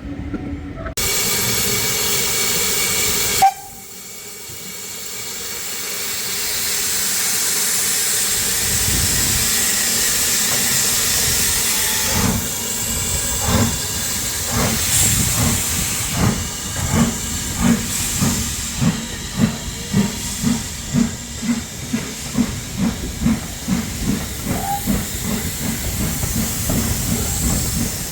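Steam locomotive getting under way. A short steady blast cuts off abruptly, then a rising hiss of steam, then regular exhaust beats, about two a second.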